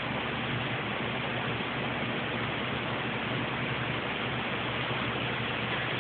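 Car engine running steadily under an even hiss of noise, with a faint low hum.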